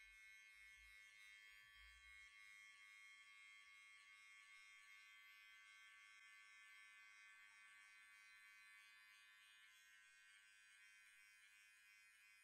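Electric hair clipper running with a faint, steady buzz during a skin-fade haircut.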